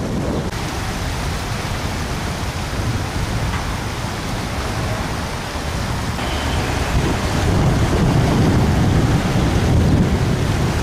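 Fast-flowing irrigation canal water rushing, with wind buffeting the microphone in low rumbling gusts that grow stronger in the second half.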